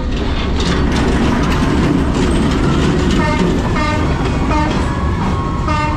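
A train passing at very close range along rails laid through a narrow street, a loud steady rumble with wheels rattling over the track.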